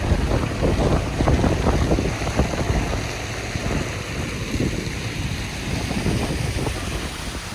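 Wind buffeting the microphone on the open deck of a cruise ship under way, in irregular gusts that are heaviest in the first three seconds and then settle into a steadier rush.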